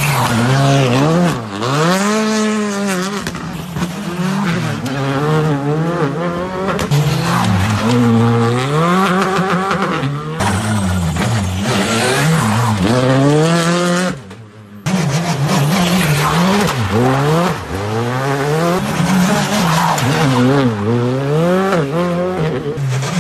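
R5 rally cars, Skoda Fabias among them, taking a tight tarmac hairpin one after another. The turbocharged four-cylinder engines rev up and fall away repeatedly with gear changes, and the sound breaks off abruptly twice as one car gives way to the next.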